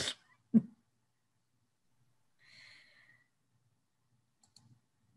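Near silence on a video call. A brief voice sound comes just after the start, a faint exhale about two and a half seconds in, and a couple of faint clicks near the end.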